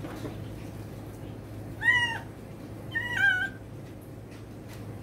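A kitten meowing twice during a bath, two short arched cries about a second apart, the second one dropping in pitch at its end.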